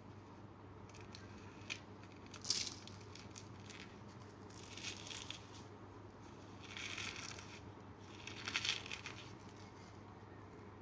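Compressed cornstarch being crumbled by hand, with squeaky crunching in four short bouts. The sharpest crunch comes about two and a half seconds in, after a few light ticks.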